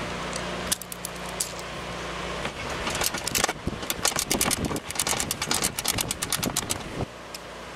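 A ratchet and 3/8-inch socket clicking and rattling against the mower deck's belt-guard bolt: a quick, uneven run of sharp metal clicks, densest in the middle. A steady low hum runs under it and dies away about two and a half seconds in.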